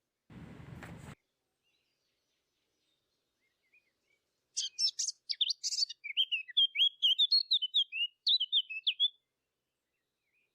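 A small songbird singing a fast run of high chirps and trills for about five seconds, starting a little before halfway through. A short burst of noise comes shortly after the start.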